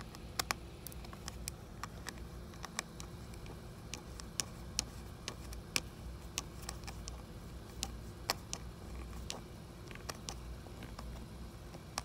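Small screwdriver driving a tiny screw into an M.2 SSD's retaining standoff in a laptop, giving faint, irregular metallic clicks and ticks over a low hum.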